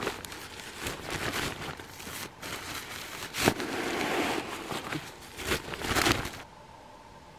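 Nylon fabric rustling and crinkling as a stuff sack is pulled off and red nylon camp gear is shaken out, with a couple of sharp flaps. It cuts off suddenly about six and a half seconds in.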